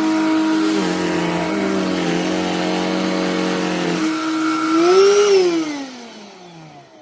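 BLACK+DECKER dustbuster furbuster cordless handheld pet vacuum running with a steady motor whine that shifts slightly in pitch. About four seconds in, the whine rises briefly, then the motor is switched off and winds down in a falling whine that fades out.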